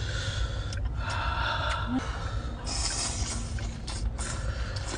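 A person eating close to the microphone: slurping and chewing food from chopsticks, with breaths drawn in through the mouth, over a low rumble.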